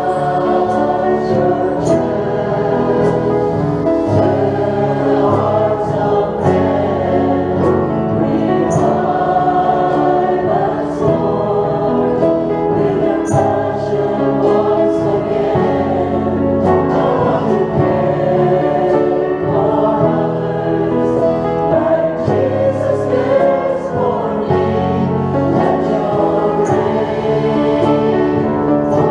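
Mixed church choir singing a worship song in sustained harmony, with instrumental accompaniment.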